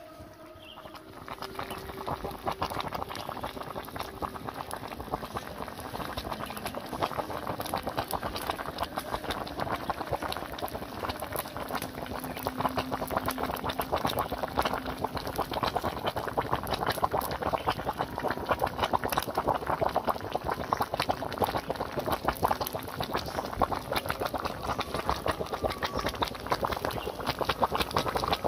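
Coconut-milk fish curry with green beans boiling in a wok, a dense, steady bubbling crackle that comes up about a second in.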